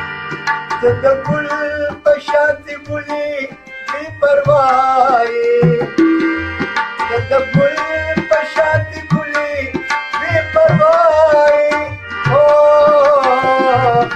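Pashto song with tabla accompaniment: a high, gliding melodic line over regular tabla strokes.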